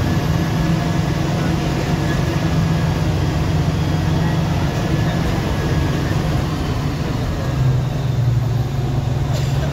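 MSRTC Shivshahi bus engine and road noise heard from inside the moving bus: a steady low drone. The engine note shifts lower and louder briefly near the end.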